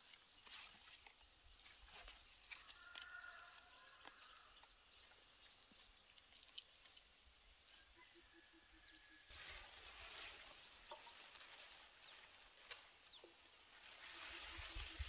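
Faint rustling and crackling of long dry leaves being bundled and gathered up by hand, louder near the end as the armful is lifted and carried. Hens cluck in the background, including short runs of quick clucks.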